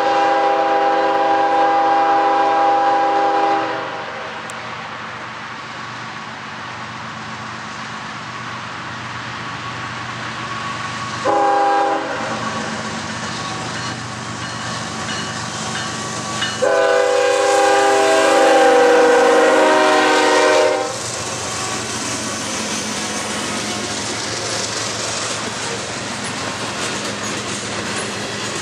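Norfolk Southern freight train's diesel locomotive horn sounding a chord: a long blast, a short one about eleven seconds in, and another long blast of about four seconds in the middle, the end of a grade-crossing signal. Between and after the blasts the locomotives run past and the freight cars roll by, their wheels clicking over the rail joints.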